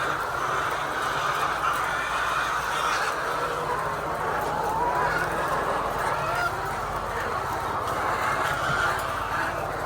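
A flock of many laying hens calling and clucking at once, a dense steady din of overlapping calls, with a steady low hum underneath.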